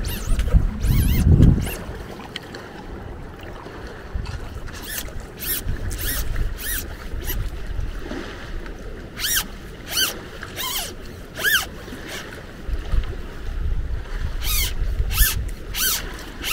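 A dozen or so short sliding rasps, one after another, as the sections of a telescopic rescue reach pole are pulled out and clipped. Wind rumbles on the microphone at the start and again near the end.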